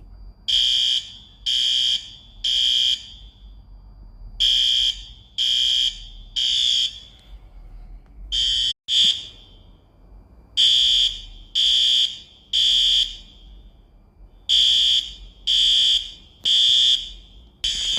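Apartment building fire alarm sounding the temporal-three evacuation signal: three high electronic beeps, a pause, then three more, repeating about every four seconds. No fire: it is a false alarm.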